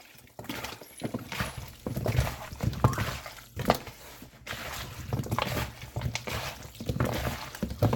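Raw chicken pieces and cut potatoes being tossed and mixed by hand in a bowl with curry powder: irregular wet squishes and knocks of the pieces against the bowl.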